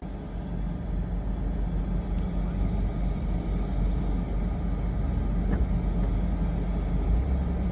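Ventilation fan running with a steady low hum and air noise, unchanging throughout, with two faint ticks.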